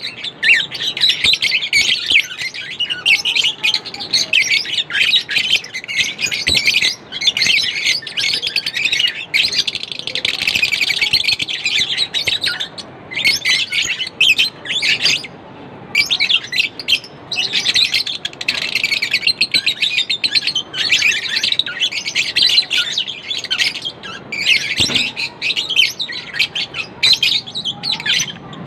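Lovebirds chirping in a rapid, continuous, high-pitched chatter, with a couple of brief pauses around the middle.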